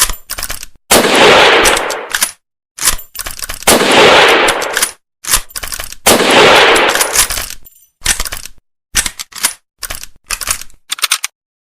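Mauser Kar98k bolt-action rifle firing three shots, each loud report trailing off over about a second, with short metallic clicks of the bolt being worked between shots. Near the end comes a longer run of sharp clicks: the bolt and action being cycled to reload.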